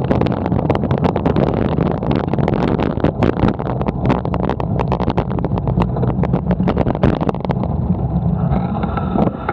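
Riding noise picked up by a camera mounted on a moving bicycle: a steady low rumble with frequent sharp clicks and rattles from the bike and mount over the road surface. The high noise thins out near the end.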